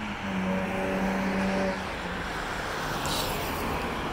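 Road traffic: cars driving past over the crossing. A steady low hum sets in just after the start and stops about two seconds in, and a brief hiss follows about three seconds in.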